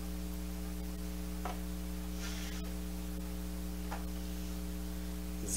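Steady electrical hum with a few faint clicks of a plastic Lego minifigure being handled and set down on the table.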